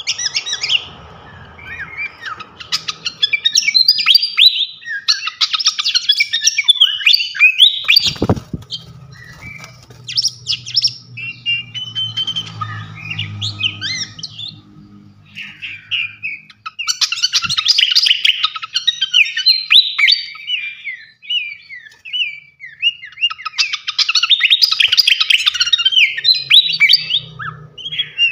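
Srikatan kipas songbird singing in loud phrases of rapid chirps and trills, one phrase after another with short pauses between them. About eight seconds in there is a single sharp knock, followed by a faint low hum.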